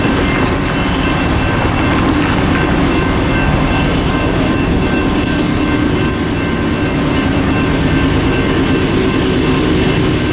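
Loud, steady rumble and rail noise of a train running on the tracks by a road grade crossing.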